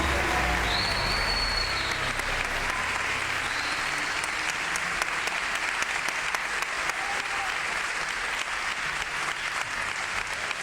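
Concert audience applauding: a steady wash of many hands clapping.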